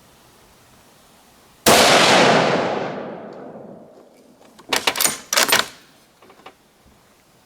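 A single shot from a Ruger Precision Rifle in .308 Winchester: a sharp report that dies away over about two seconds. A few seconds later the bolt is worked, with a quick run of metallic clacks.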